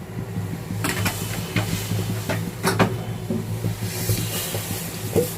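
Refined cooking oil being poured into a kadai, with a light hiss and a few sharp clinks of the container against the pan, over a steady low hum.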